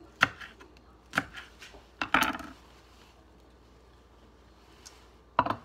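Kitchen knife and chopped vegetables knocking on a wooden cutting board: a few separate sharp knocks about a second apart, a short clatter about two seconds in, and one more knock near the end.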